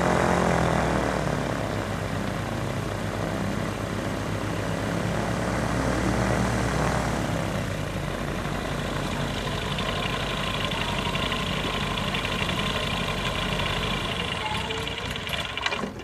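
Flexwing microlight trike's engine and propeller running steadily at low power on the ground, cutting off abruptly near the end.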